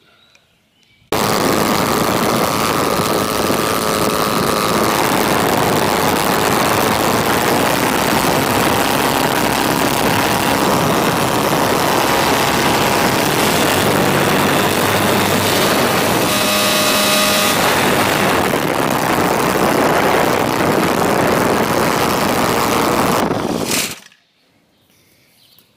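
DLE-222 four-cylinder two-stroke gas engine for RC aircraft running loud and steady, below full throttle. It starts abruptly about a second in and cuts off abruptly near the end.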